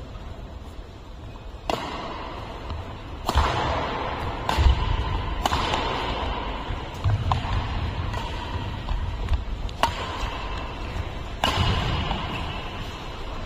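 Badminton rally: rackets strike the shuttlecock with sharp cracks every second or two, about half a dozen in all, each trailing a short echo, over low thuds of footwork on the court.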